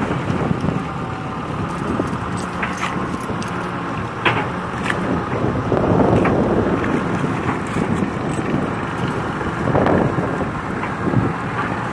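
KATO HD512E excavator's diesel engine running under load as it swings and works its bucket through canal-bank mud, with a few sharp knocks from the bucket and boom.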